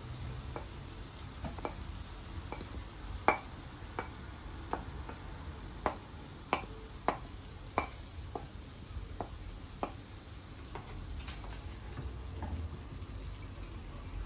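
Wooden spatula knocking and scraping chopped vegetables off a ceramic plate into a frying pan, a string of sharp knocks with the loudest about three seconds in, over the soft sizzle of the pan. Near the end the spatula stirs the vegetables in the pan.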